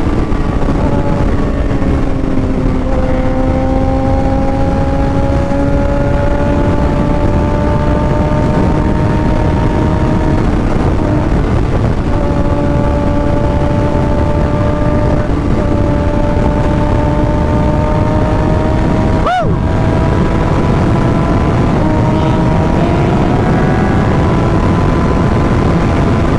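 Kawasaki ZX6R inline-four sport bike engine heard from the saddle while riding, its pitch climbing slowly in each gear and dropping at the gear changes, three times, over a heavy low rumble. A brief rising-and-falling tone sounds about nineteen seconds in.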